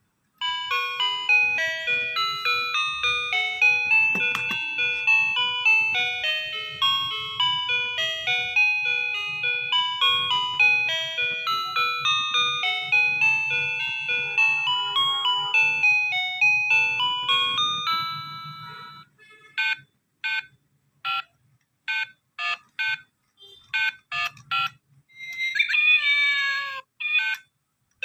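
Toy mobile phone playing an electronic beeping melody for about 18 seconds, then a string of short separate beeps, and near the end a brief sound with wavering pitch.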